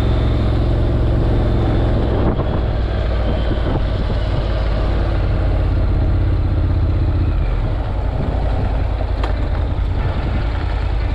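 Honda NC700X motorcycle's parallel-twin engine running steadily while riding, under a haze of wind noise. It eases off a little towards the end as the bike slows.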